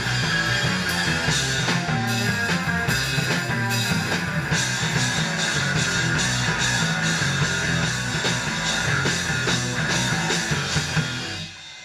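Live rock band playing loud electric guitar, bass and drums, the song stopping abruptly near the end.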